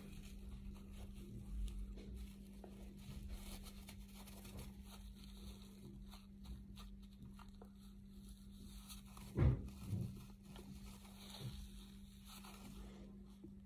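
Paper tissue rustling and crinkling as it is pressed and worked against the lips, with a steady low hum underneath and one short, louder low thump about nine and a half seconds in.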